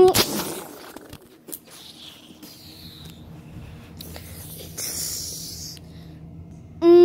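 A child's held vocal sound effect, a long 'aaah' on one pitch, cuts off at the start; then come a few light clicks and knocks of plastic K'nex and Lego pieces, with rustling and scraping over carpet. Near the end another loud held vocal note starts, sliding slightly down in pitch.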